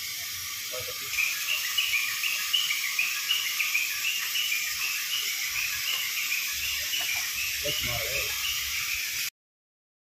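A steady hiss with a rapid chirping call repeating about three times a second, cutting off abruptly near the end.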